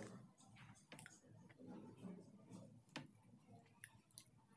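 Quiet, close-miked eating sounds: chewing with scattered sharp mouth clicks, and soft crackles as fingers tear aloo paratha and pick up instant chowmein from a paper plate.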